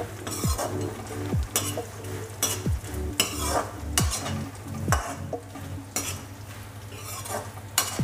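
A steel slotted ladle stirring fox nuts (makhana) roasting in ghee in an aluminium kadhai: a scrape about once a second over a light sizzle.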